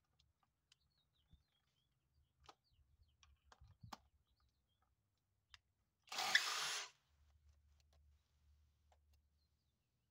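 Kobalt XTR 24-volt impact driver running in one short burst of just under a second, about six seconds in, with a few faint clicks around it.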